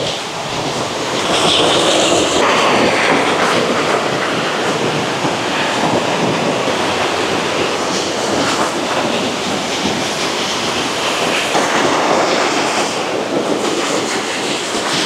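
Small waterfall rushing steadily over rocks into a forest stream.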